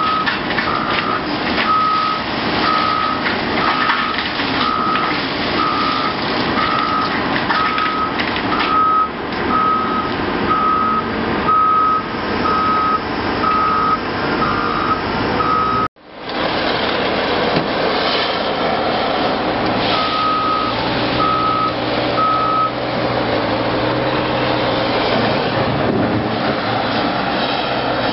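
Diesel engines of a Cat 980K wheel loader and a Cat 740B articulated dump truck running under load, with a reversing alarm beeping about once a second. The sound drops out abruptly about halfway, and after that the alarm gives only a few more beeps.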